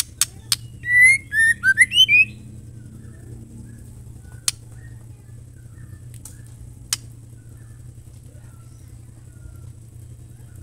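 Female white-rumped shama calling: two sharp clicks, then a quick run of loud whistled notes gliding up and down about a second in, followed by three more single sharp clicks spaced a second or two apart.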